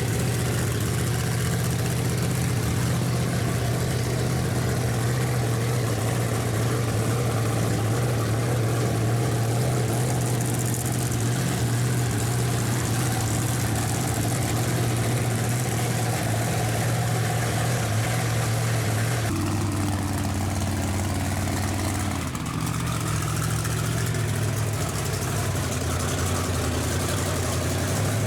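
A vehicle engine idling steadily, its tone shifting abruptly about two-thirds of the way through.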